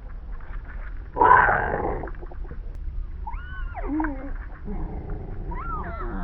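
Gopher calls slowed to quarter speed, so they come out deep and groaning: a loud harsh burst about a second in, then two drawn-out pitched calls that glide up and then down, over a steady low rumble.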